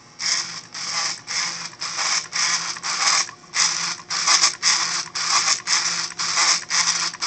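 3D-printed plastic pen plotter with plastic gears and racks, running and drawing lines on a card. It whirs in short even strokes about twice a second over a low steady hum.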